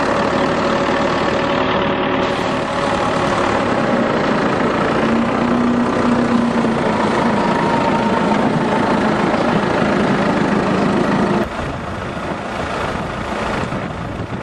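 Farm tractor's engine running steadily while it is driven along the road. About eleven seconds in, the sound drops off abruptly and a quieter, more rushing noise follows.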